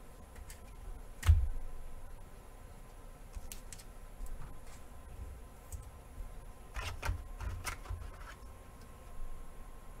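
Trading cards being handled over a tabletop: light clicks and taps of cards and their plastic sleeves. One sharp tap comes about a second in, and a quick cluster of clicks comes about seven seconds in.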